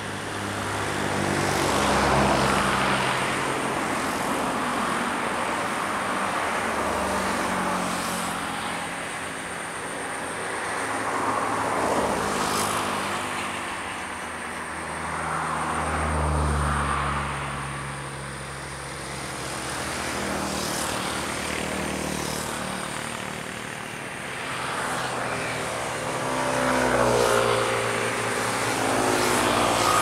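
Motor vehicle engines passing one after another, swelling and fading every few seconds, with a faint steady high whine behind them.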